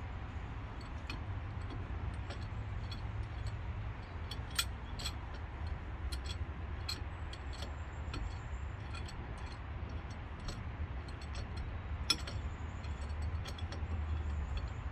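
Irregular light clicks and taps of small metal parts and hand tools being handled during brake caliper work, over a steady low hum. The sharpest click comes about twelve seconds in.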